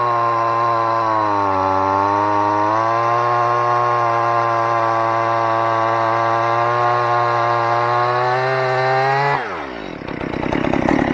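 Stihl MS 181 C two-stroke chainsaw running at high revs while cutting a thick log, its pitch sagging for a moment about two seconds in and then recovering; the owner finds the saw short of power. Near the end the throttle is released and the engine drops quickly to a rough, rattling idle.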